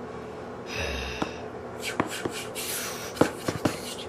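Small plastic Lego pieces being handled: several sharp little clicks with some rustling between them.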